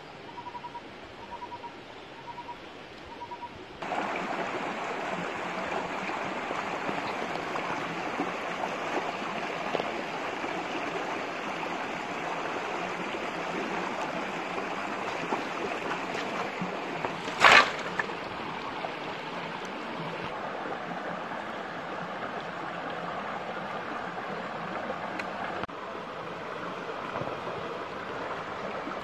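Shallow stream rushing steadily over rocks. It starts abruptly about four seconds in and has a single loud knock just past the middle. Before it, a short high note repeats about twice a second over quiet woods.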